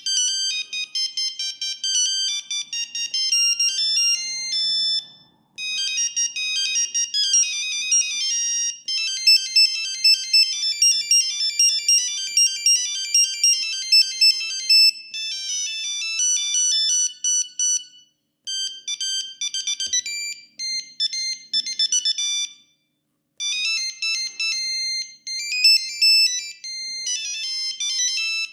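Siemens S35 mobile phone playing its built-in ringtones in turn: high-pitched beeping melodies, one note at a time, with short breaks between tunes.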